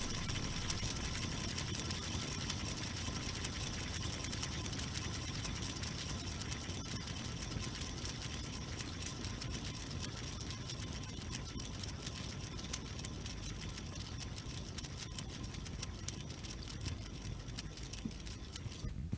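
A spinner whirring steadily, with a fast, fine ticking running through it, slowly getting quieter as it spins down.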